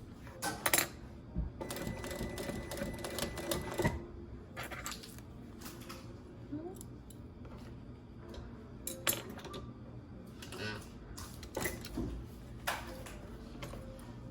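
Sewing machine stitching leather in a short run of rapid stitches early on, then scattered clicks and knocks of handling the machine and the work.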